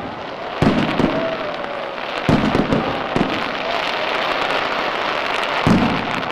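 Aerial fireworks bursting: about five heavy booms at uneven gaps over continuous crackling of sparks.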